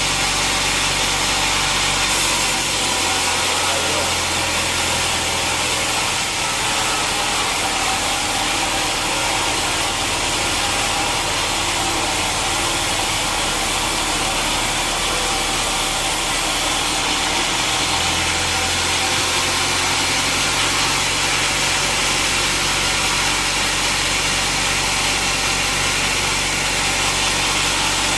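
Sawmill saw running steadily through a teak log, a dense, even machine noise whose tone shifts a couple of seconds in and again just past the middle.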